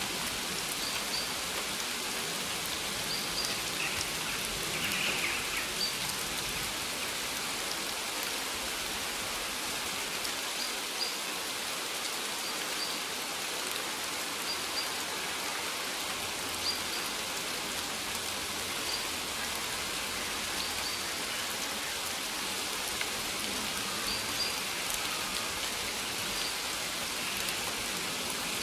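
Steady rain falling on maize leaves, an even patter with no let-up.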